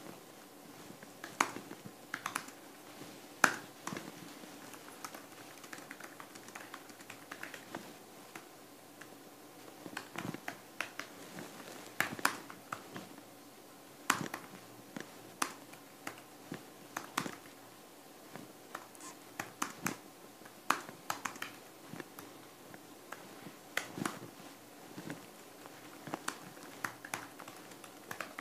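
Irregular light clicks and taps with faint scratching, the small sounds of someone working quietly at a desk, over a faint steady room hum.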